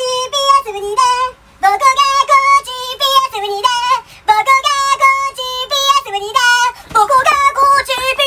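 A high-pitched voice singing a quick melody of short notes, some held with a wobble, with a short break a little after a second in.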